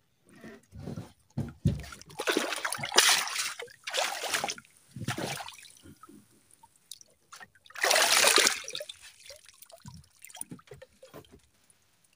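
Seawater splashing and trickling in several irregular bursts, the loudest about two to three seconds in and again about eight seconds in.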